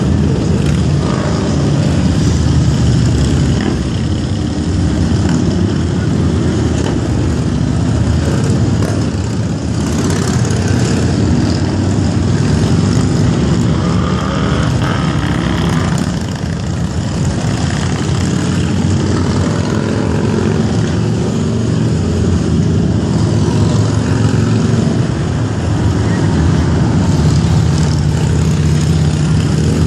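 A steady stream of motorcycles riding past one after another, engines running continuously and swelling as each bike goes by, with the odd car and a motorhome passing among them.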